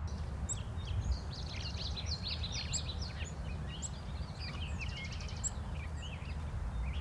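Several songbirds chirping and singing, with quick trills about a second in and again about five seconds in, over a steady low rumble.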